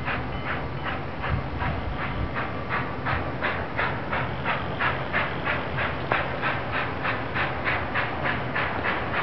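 Union Pacific 844, a 4-8-4 Northern steam locomotive, chuffing hard as it pulls its train away from a stand. Its exhaust beats come evenly, about three to four a second and quickening slightly, over a low rumble.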